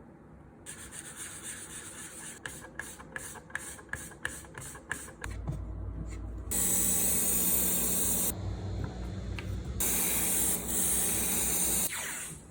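Airbrush spraying paint in two hissing bursts of about two seconds each, over a low steady hum that starts about five seconds in. Before that comes a quick run of clicking or scraping strokes, several a second.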